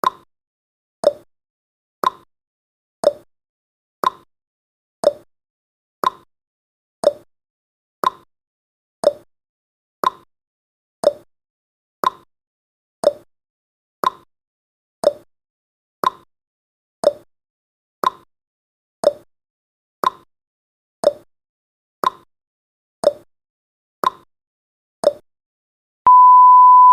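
Countdown timer's clock sound effect ticking once a second, alternating a higher tick and a lower tock. Near the end the ticking stops and a steady beep begins as the countdown reaches zero.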